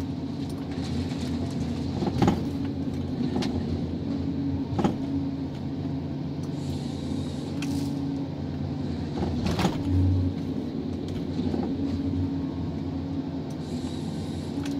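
John Deere 1270G harvester's diesel engine and hydraulics running steadily, heard from inside the cab, while the H480 harvester head feeds and cross-cuts a log. Several sharp knocks from the head, and a saw cut hissing near the end.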